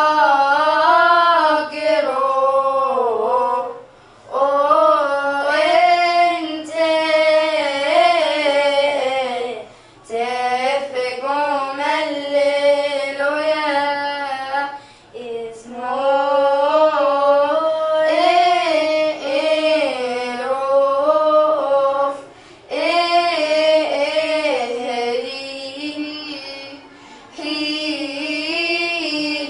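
Two young girls singing together without accompaniment. They sing in long phrases with short pauses for breath every five or six seconds.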